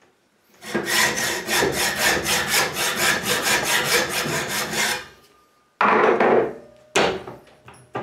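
Hacksaw cutting through a cheap padlock's metal housing (which the owner takes for zinc) clamped in a vise: fast, even back-and-forth strokes, about four to five a second, for some four seconds. Then the sawing stops, followed by a clatter and a sharp knock.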